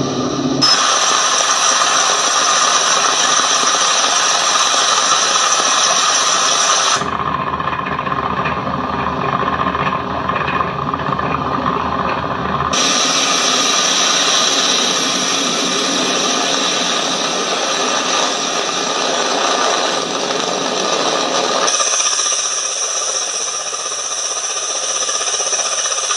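Attack helicopter turbine and rotor noise, including a Ka-52's, running loud and steady across several spliced clips. The sound changes abruptly at each cut, about 1, 7, 13 and 22 seconds in.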